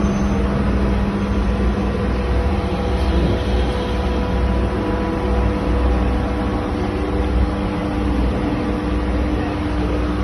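A steady mechanical hum with a low rumble underneath and a few held tones, unchanging throughout.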